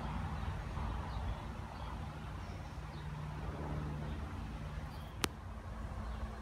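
Low, steady background rumble with a faint hum, broken by one sharp click about five seconds in.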